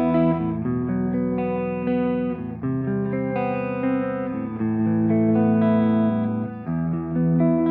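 Electric guitar played through Nembrini Audio's free amp and effects plugins as a sound demo: held chords that change every second or so.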